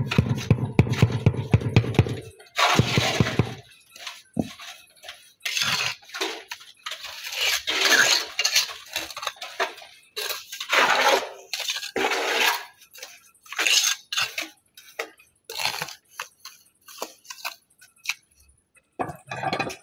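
Flagstone being tapped down into wet mortar with a hammer: a quick run of knocks for the first two seconds or so. After that come scattered knocks, clinks and scrapes of stone and trowel against stone and mortar.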